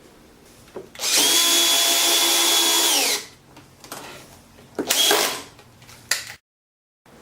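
Power drill run twice. The first run lasts about two seconds, a steady whine that drops in pitch as the trigger is released. A shorter second burst follows about two seconds later.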